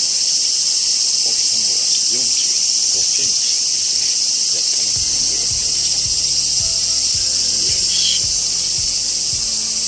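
Steady, loud chorus of cicadas droning in unbroken high-pitched hiss-like song, with faint low knocks in the second half.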